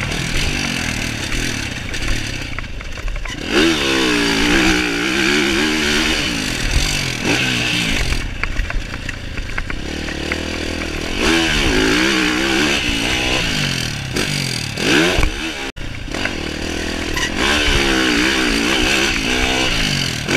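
Yamaha SR500 single-cylinder four-stroke motorcycle engine being ridden, revving up and falling back again and again as the throttle opens and closes.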